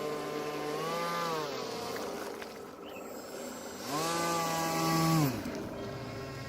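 RC airboat's motor and air propeller running, with a short throttle blip about a second in and a longer, louder burst of throttle around four seconds in: the pitch rises, holds, then drops back.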